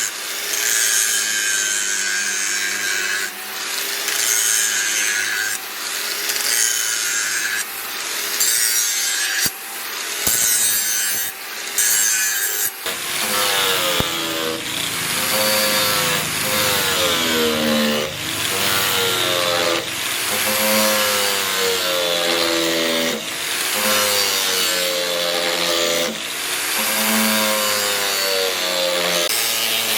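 Rhythmic back-and-forth strokes of a hand tool, sawing or filing, about one stroke a second. Each stroke scrapes with a squeal that bends in pitch, more pronounced in the second half.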